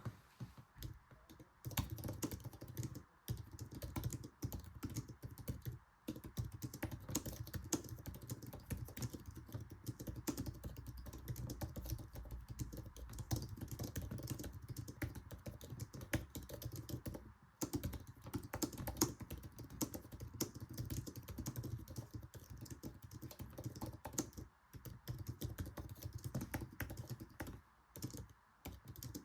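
Fast typing on an Apple Magic Keyboard's low-travel scissor-switch keys: a dense run of rapid key presses, broken by a few short pauses.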